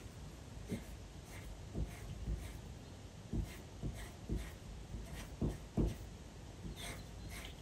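Pencil point tracing over a paper printout: a faint, irregular series of short scratchy strokes and light taps as short lines are drawn.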